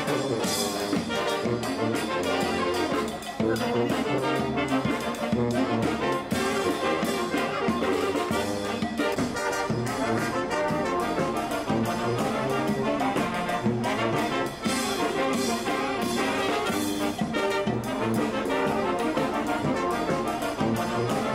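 Music led by brass instruments, playing on without a break.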